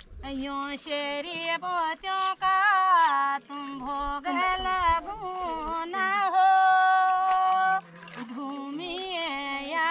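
Women singing a Kumauni devotional song to the land deity Bhumiya deva, unaccompanied, in wavering sung phrases. About six seconds in comes one long held note, which breaks off near eight seconds before the next phrase begins.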